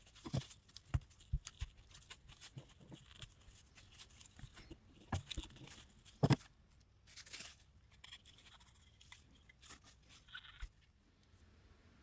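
Handling noise from the insert of a mini Zippo lighter as its cotton packing and wick are pulled out: irregular small knocks and clicks, a few sharper taps, with soft scraping and rustling between.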